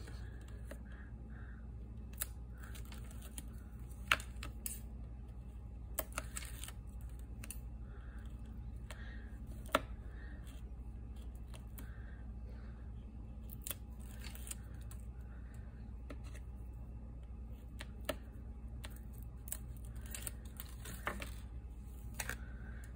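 Paper crafting handled by hand: the backing peeled from double-sided tape and patterned paper strips pressed down onto a notepad cover, heard as soft rustles and scattered light clicks. A low steady hum sits underneath.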